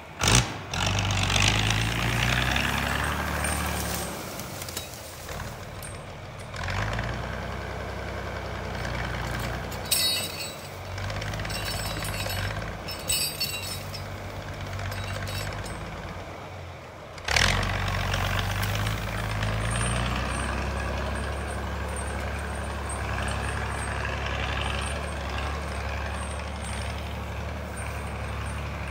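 An engine running and revving up and down in steps. There are two loud sudden knocks, one right at the start and another about 17 seconds in.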